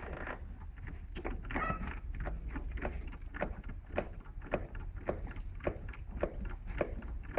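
Short metallic clacks, about three a second, from a hydraulic rail-weld trimmer worked by hand on a freshly welded, still red-hot rail joint, over a low steady hum.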